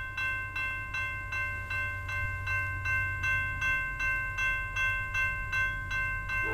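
Railroad grade-crossing bell ringing steadily, about two and a half strokes a second, sounding because a train is approaching, over a low rumble.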